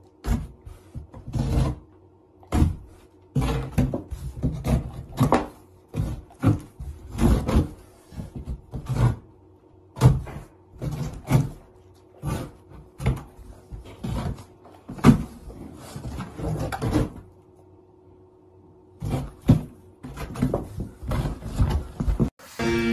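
Irregular wooden knocks and thumps, about one or two a second with a short pause near the end, as a golden retriever's jaws and snout strike a wooden board while it snaps at a carrot stick poking up through the board's holes.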